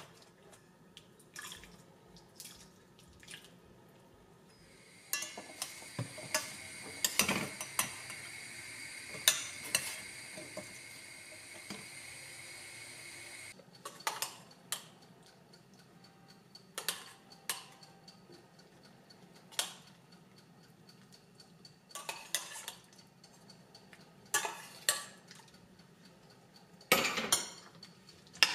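Metal spoon clinking and scraping against a glass bowl and a metal pot as cooked fava beans are spooned in and stirred, in a string of separate clinks. For several seconds after about five seconds a steady hiss runs under the clinks, then cuts off suddenly.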